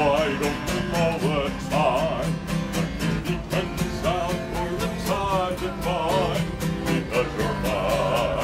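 A man singing a country-style song with vibrato on held notes while strumming a steel-string acoustic guitar in a steady rhythm.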